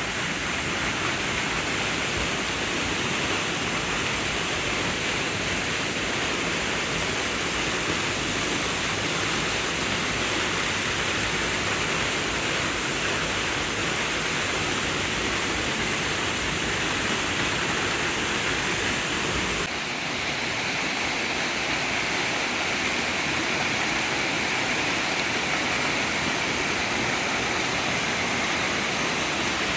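Waterfall: a steady rush of falling water. About two-thirds of the way through it changes abruptly, with less low rumble and more hiss.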